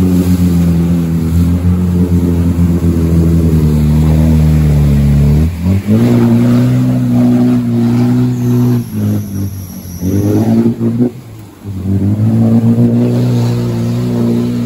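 Off-road 4x4's engine working under load, its revs sliding down over the first five seconds, then picking up again and holding steady, with a couple of brief drops and rises near the middle.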